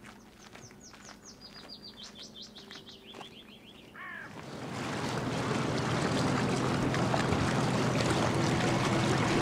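A songbird sings a phrase of about a dozen short whistled notes stepping down in pitch. About four seconds in, a small outboard motor on a cabin motorboat comes in over the sound of water and runs steadily, growing louder.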